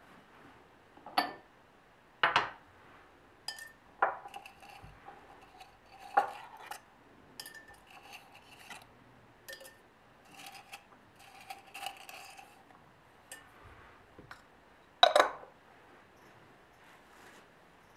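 Irregular clinks and knocks of small hard objects, several with a brief ringing note. The loudest comes late, with quieter ones scattered throughout.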